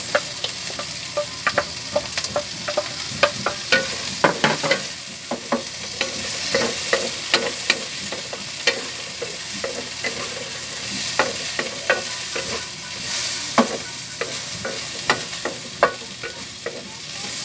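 Carrot strips and other vegetables stir-fried in hot oil in an aluminium wok: a steady sizzle with frequent, irregular scrapes and taps of a wooden spatula against the wok.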